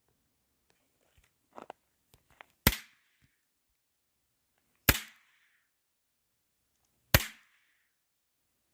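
Three Diablo Bomber throw-down snaps popping one at a time, about two seconds apart, each a sharp crack. A few faint clicks of handling come before the first.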